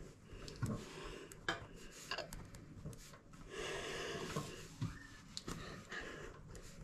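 Pencil writing quickly on a paper workbook: short scratches and taps of the pencil tip, with a longer scratchy stretch about midway.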